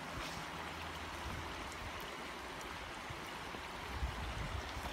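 A small rocky creek running, a steady rush of water over stones, with a few low thumps about four seconds in.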